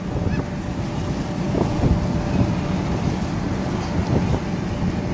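Steady low rumbling noise with wind buffeting the microphone and a faint steady hum.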